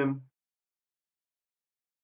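Silence, with only the trailing end of a spoken word in the first moment.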